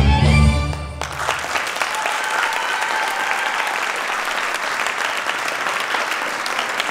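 Belly-dance music cuts off about a second in, and then an audience applauds steadily.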